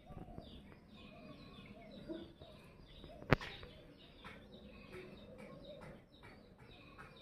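Rabbit nibbling fresh green grass, with soft crunching and rustling of the blades, while birds chirp around it. A single sharp snap stands out about three seconds in.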